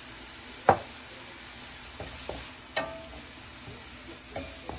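Chopped onion and garlic frying in oil in a stainless steel pan, a steady low sizzle, while a wooden spatula stirs them. The spatula knocks sharply against the pan about a second in, the loudest sound, then taps it lightly a few more times, with a brief metallic ring.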